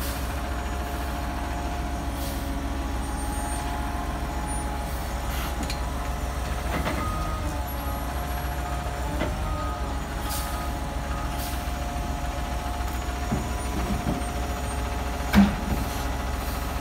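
American LaFrance front-loader garbage truck idling, its diesel engine running steadily with a faint steady whine over it. A single sharp knock stands out about fifteen seconds in.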